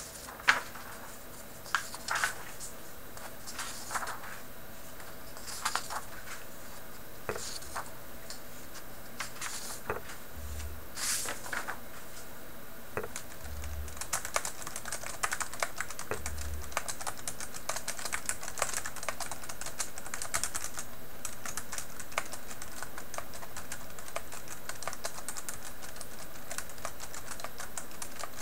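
BenQ A800 rubber-dome keyboard being typed on. For the first half, single key presses come every second or two; then, about halfway through, steady fast typing begins.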